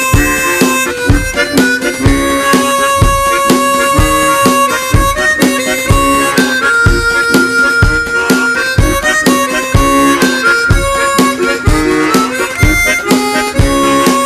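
Harmonica ensemble music: a held, changing melody over chords with a steady low beat, about two pulses a second.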